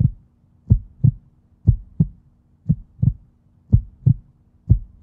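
Heartbeat sound effect: deep double thumps (lub-dub), about one beat a second, over a faint steady low drone.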